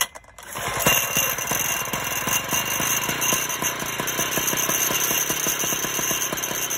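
Lawn-Boy two-stroke mower engine catching about a second in and running with a rapid, even firing beat, kept going by aerosol spray fed into its carburetor.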